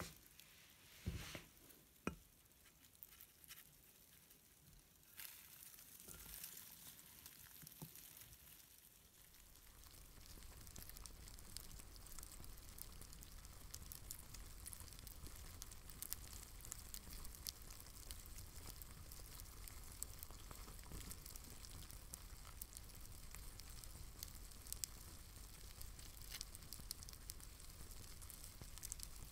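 Faint, steady crackling hiss full of tiny ticks, like sizzling, setting in about ten seconds in after a few scattered soft knocks.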